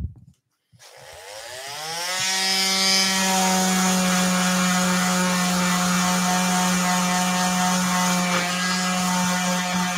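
Electric square-pad orbital sander switched on about a second in, its motor spinning up, rising in pitch, then running at a steady hum as it sands across the face of a wooden board to take off pencil marks.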